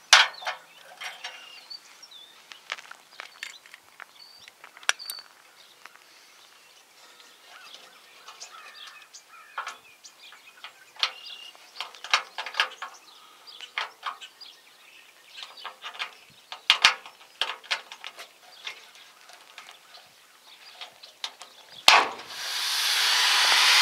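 Scattered small clicks and taps of hands handling wires and a trailer connector at a truck's bumper, with a few faint bird chirps. Near the end a loud steady hiss starts and swells.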